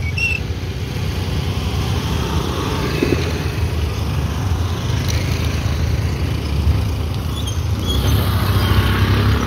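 Motor scooter and motorcycle engines running at low speed as the bikes ride off a ferry onto the jetty, a steady low rumble that grows louder near the end as a motorcycle passes close.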